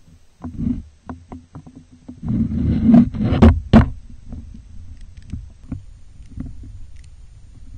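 Water moving around a camera submerged in a canal, heard muffled through its microphone: low rumbling with small knocks, then a louder rush of water about two to four seconds in that ends in two sharp knocks against the camera, settling back to a low steady rumble.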